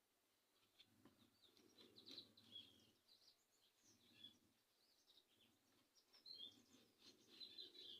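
Near silence, with faint small birds chirping and twittering in short, scattered calls.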